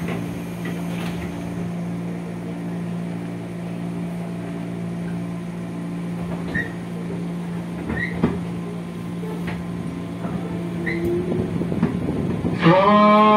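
Steady hum inside a JR 205-series electric commuter car, its pitch unchanging, with faint short squeaks now and then. Near the end a louder tone from the onboard PA system starts.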